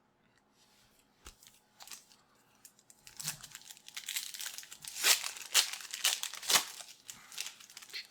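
A trading-card pack wrapper being torn open and crinkled by hand: a few sharp crackles, then about three seconds in a dense, loud crinkling that runs to the end.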